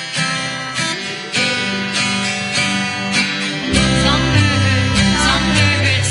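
Music: acoustic guitar strumming chords, with a bass line coming in a little over halfway through.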